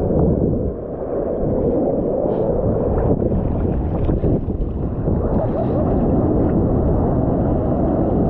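Seawater rushing and sloshing around a GoPro's waterproof housing at the surface, with shorebreak waves breaking close by. The sound is muffled and mostly low.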